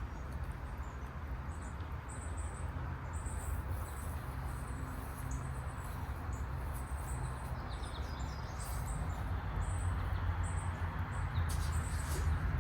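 Small birds chirping in short, repeated high calls over a steady low rumble.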